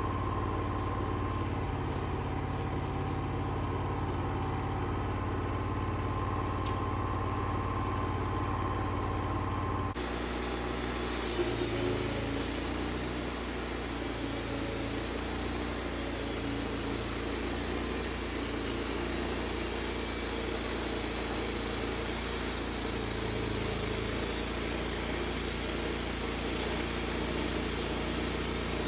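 An engine running steadily. About ten seconds in the sound changes abruptly to a different, hissier engine noise.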